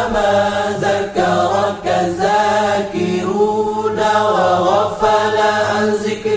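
Devotional vocal chant sung in long, drawn-out melodic phrases with no clear words, over a steady low drone.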